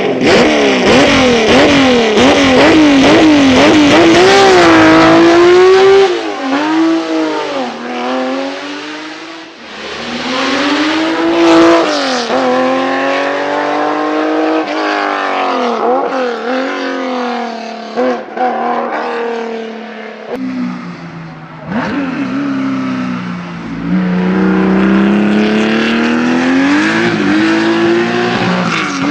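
Porsche 911 SC RS rally cars' air-cooled flat-six engines, loud throughout. First the engine is revved in quick blips, its pitch climbing. After a cut come several runs of hard acceleration, the pitch rising and then dropping sharply at each gear change or as the car passes.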